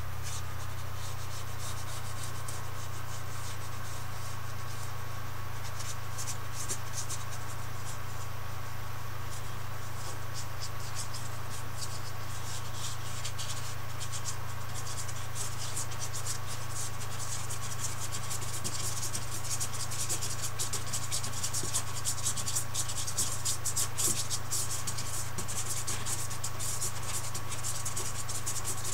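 Paintbrush scrubbing and dabbing on canvas in quick scratchy strokes, sparse at first and growing busier in the second half, over a steady low hum.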